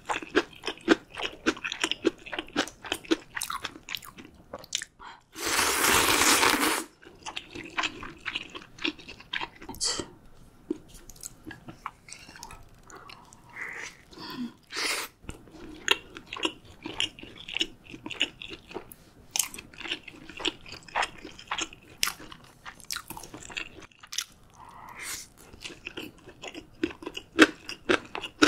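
Close-miked ASMR eating sounds of a meal of ramyun, dumplings, gimbap and kimchi: rapid wet chewing with crisp crunching. About five seconds in there is a loud slurp lasting over a second.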